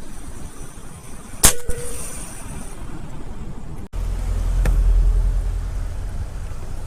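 A single sharp crack of a PCP air rifle shot about one and a half seconds in, with a brief ringing tone after it. After an abrupt break, a low rumble follows.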